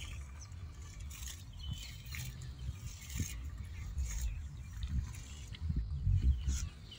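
Outdoor rural ambience: faint bird chirps over an uneven low rumble.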